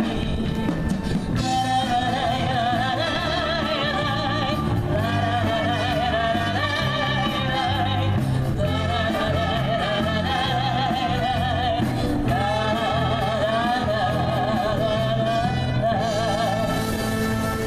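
Live brass band playing dance music, with a singer's voice carrying the melody over the band's steady bass and held chords. The melody line wavers with a strong vibrato.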